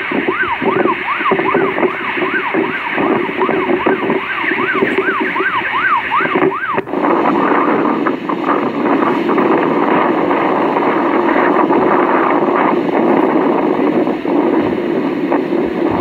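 An emergency siren sweeping rapidly up and down, about two to three times a second, over heavy storm noise; it cuts off about seven seconds in, leaving a steady rushing storm noise.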